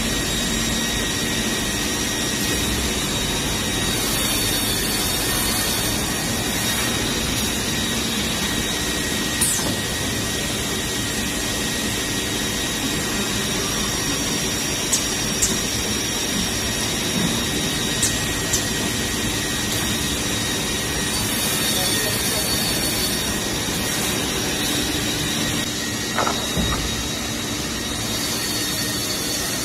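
Automatic CNC cross-cut saw line for wood running steadily, a constant machine hum and hiss with a few steady whining tones, broken by a handful of short sharp clacks.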